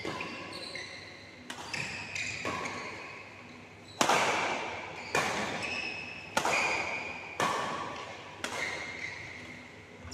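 Badminton rally: about eight sharp racket hits on the shuttlecock, roughly one a second, each ringing out in the hall's echo. Short high squeaks of shoes on the court mat come between the hits.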